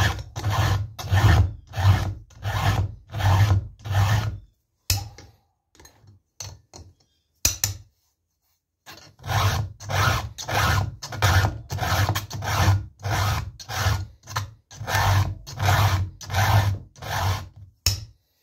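A round chainsaw file is pushed by hand through the cutter teeth of a saw chain clamped in a vise, sharpening it in steady rasping strokes about two a second. About four seconds in the filing stops for a few seconds, with a couple of light clicks, then starts again at the same pace.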